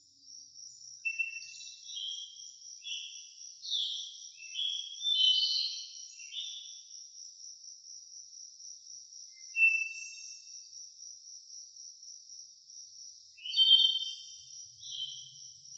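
A songbird sings bouts of short, varied whistled notes, over a continuous, rapidly pulsing, high-pitched insect trill. There is one lone note in the middle of a pause between the bouts.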